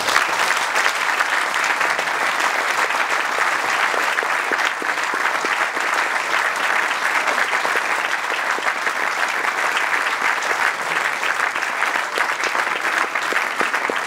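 Audience applause: many people clapping steadily.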